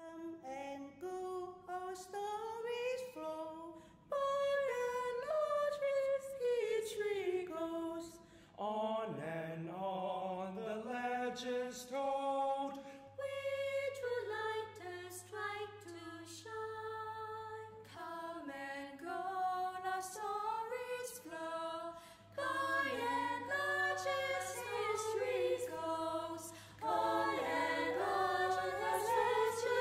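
Unaccompanied choir singing a slow melodic song, several voices without instruments.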